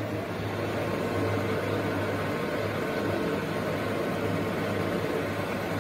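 Hydraulic press's motor and pump running with a steady, even hum.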